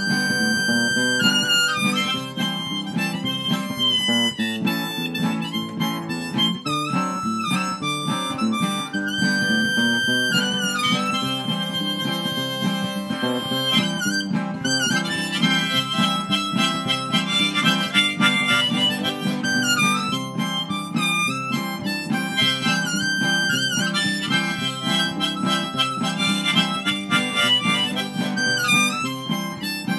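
Diatonic harmonica in a neck rack, played straight harp (first position) and leading the tune, over an acoustic guitar accompaniment, in an old-time country-blues style. The two play continuously, with the harmonica loudest.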